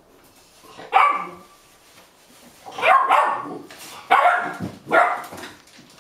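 Eight-and-a-half-week-old golden retriever puppies barking, a few short barks roughly a second apart, impatient to be fed.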